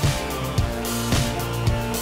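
Background music with a steady beat, about two drum hits a second over held chords.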